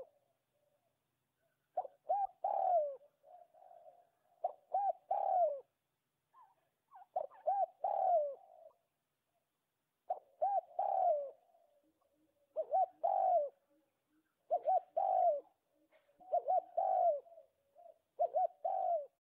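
A dove cooing over and over, each phrase a few quick rising-and-falling notes, repeating about every two seconds.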